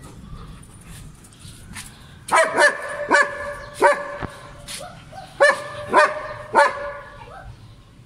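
German shepherd barking for a treat held above it: about two seconds in, a run of sharp barks starts and comes in two bursts, with a steady high-pitched whine between them.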